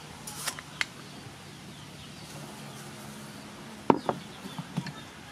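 A wooden spoon clicking and knocking a few times as sugar is scooped and sprinkled into a wooden mortar of shredded papaya, the loudest knock about four seconds in.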